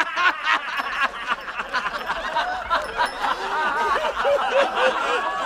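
A group of people laughing and calling out together, many voices overlapping.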